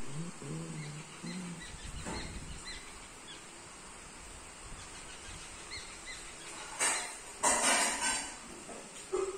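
Outdoor ambience: faint scattered bird chirps over a steady hiss. A low pitched, voice-like sound comes in the first second and a half, and two loud bursts of noise come about seven and eight seconds in.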